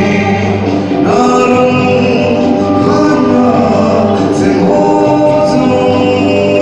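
A singer performing a song into a microphone, amplified through the hall's sound system, with musical accompaniment; the voice moves through long held notes.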